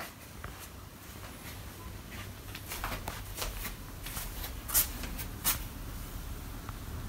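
Curtains being drawn back from a window: fabric rustling with a run of quick sliding swishes, the two loudest a little past the middle.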